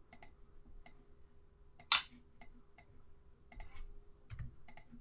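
Computer mouse clicking: about ten scattered single clicks with a louder one about two seconds in.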